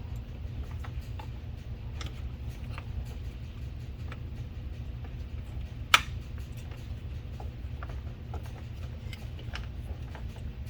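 Small clicks and taps from handling the plastic door latch and actuator parts and their cable, with one sharp click about six seconds in, over a steady low hum.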